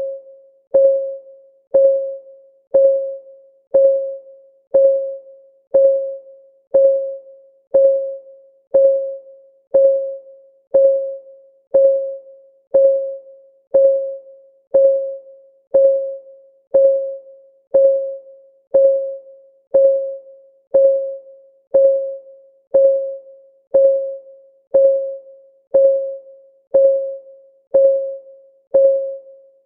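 Countdown timer's clock ticking sound, one tick each second, steady throughout. Each tick is a short pitched plink that rings briefly and fades.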